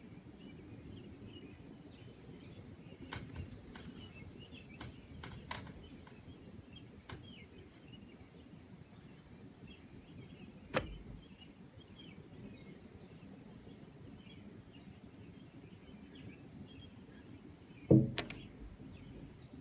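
Faint room background with scattered small chirps of distant birds, a few sharp clicks, and a single louder knock near the end.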